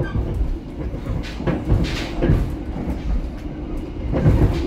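Running noise inside a moving passenger train carriage: a constant low rumble with irregular knocks and rattles from the wheels and the carriage body.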